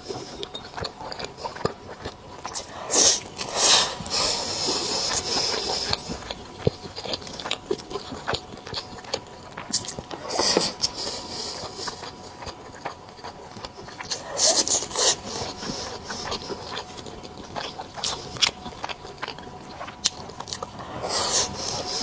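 Close-miked eating: chewing and biting soft food, with irregular wet mouth clicks and smacks and a few louder smacking moments spread through.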